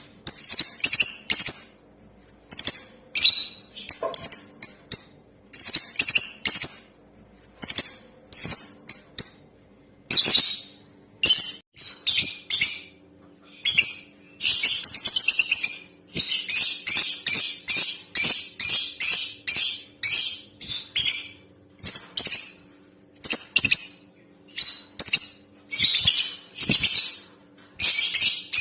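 Lovebird chattering in short, shrill bursts, with a long unbroken run of rapid chatter from about a third of the way in. It is a female lovebird's call of the kind played as a lure to set male lovebirds singing.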